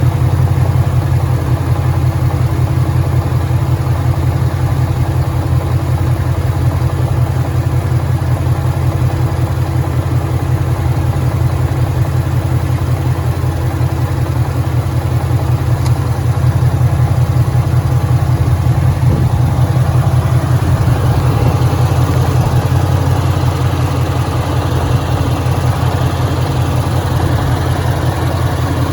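2013 Ford Mustang GT's 5.0 Coyote V8 idling steadily with a fast, even pulsing, the engine the owner believes has rod knock.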